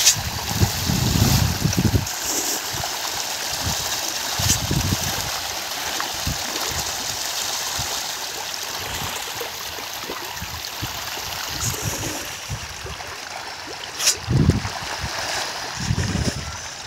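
A dense crowd of pond fish splashing and churning at the surface as they feed, a steady watery splashing with a few louder splashes and bumps near the start and about 14 seconds in.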